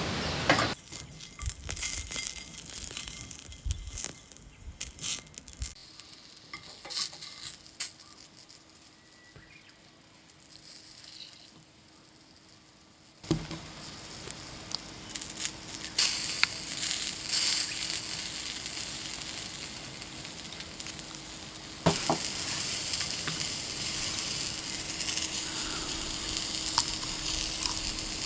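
Food sizzling as it cooks, with scattered small ticks and crackles. The sound changes abruptly a few times.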